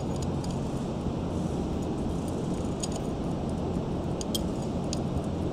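Steady low background hum, with a few faint metallic clinks of a hand wrench working a pump mounting bolt.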